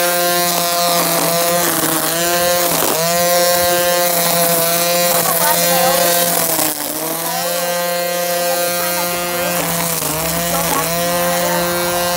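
String trimmer running at full speed with a steady high whine. Its pitch sags briefly three times, about 3, 7 and 10 seconds in, as the spinning line bogs down cutting through grass.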